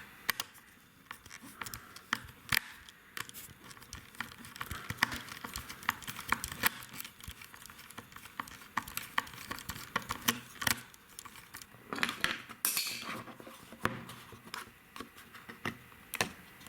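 Screwdriver working the screws out of a small soldering station's metal casing: irregular small clicks and ticks of tool, screws and case, with a short scraping stretch about three quarters of the way through.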